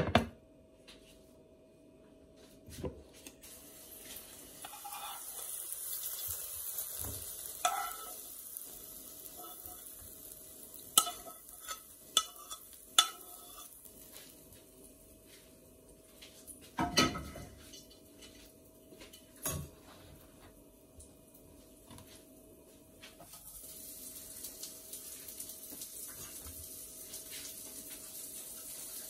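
A plate set down on a counter with a clack, then a serving spoon scraping and clinking against the pan and plate as stir-fried egg with tomato and onion is spooned onto rice. The sharp clinks come at the start, in a cluster midway and again a little later. A faint sizzling hiss from the pan rises and falls between them.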